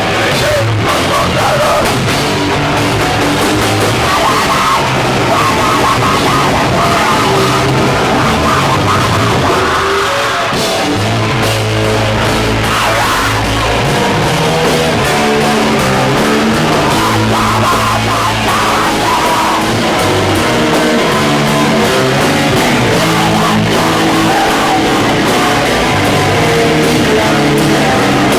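Hardcore band playing live, loud and continuous, with heavy distorted guitar, bass and drums.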